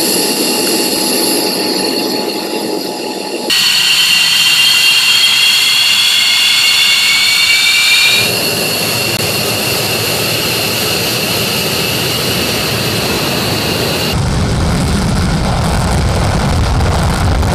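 Fighter jet engines in several cut-together clips: a high-pitched turbine whine, a whine rising in pitch for several seconds as an engine spools up, and near the end the low rumble of a jet taking off on afterburner.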